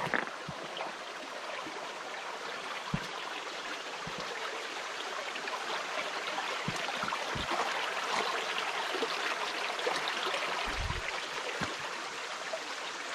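Shallow mountain creek running over rocks, a steady babble that grows a little louder around the middle. A few short low thumps are scattered through it.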